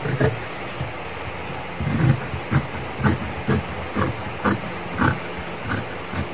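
Scissors snipping through red leather along a traced pattern line, about two cuts a second, over a steady low hum.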